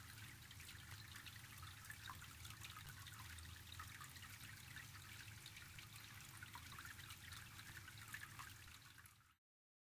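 Faint trickling water that cuts off abruptly near the end.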